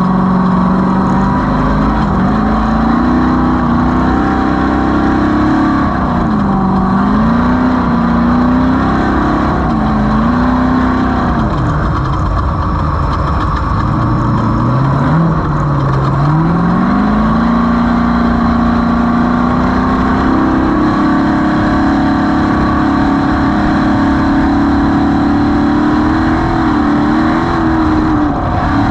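Off-road race vehicle's engine running hard, its pitch rising and falling with throttle and speed. The note dips low around the middle, then climbs and holds steady and higher over the last third, over a constant low rumble.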